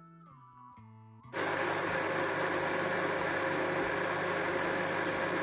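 Electric countertop blender switched on about a second in and running loud and steady at full speed, with a low motor hum, blending mint leaves with water into a chutney. Before it starts, soft guitar background music.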